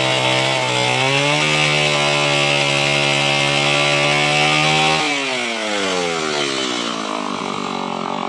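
Stihl MS 180 two-stroke chainsaw at full throttle: the engine climbs to high revs about a second in, holds there steadily, then winds down in pitch over the last few seconds as the throttle is let off.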